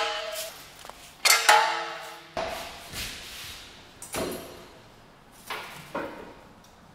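Steel jack stands being set down on a concrete floor: two loud metal clanks in the first second and a half, each ringing on briefly, followed by several duller knocks.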